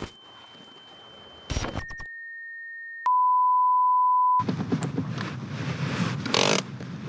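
Edited-in 'technical difficulties' effect: crackly digital glitch noise under a high steady whine, then a lower held tone, then a loud steady test-tone beep over TV colour bars that cuts off about four seconds in. After the beep comes the steady road and engine rumble heard inside the car's cabin.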